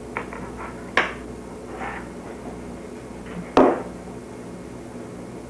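Two sharp knocks, about two and a half seconds apart, as things are handled and set down on a kitchen counter, with faint voices in between.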